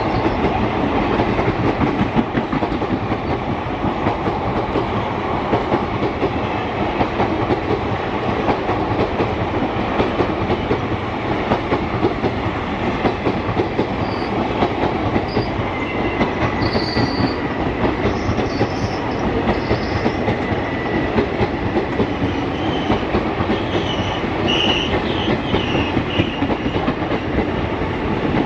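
Passenger coaches of an express train passing at speed: a loud, steady rattle of steel wheels clattering over the rail joints. Faint high wheel squeals come in over the second half.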